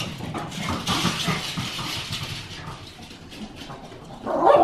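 A small dog scampering across a hard laminate floor with a toy, with a busy clatter of quick clicks from its claws. Near the end come louder barks.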